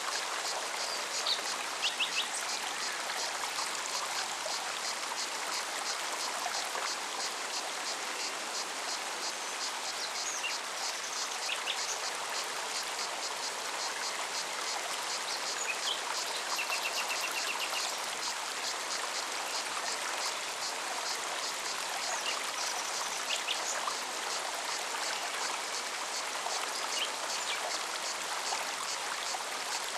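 Forest stream flowing steadily, with a cicada singing in fast, even pulses throughout and a few short bird chirps and one brief trill.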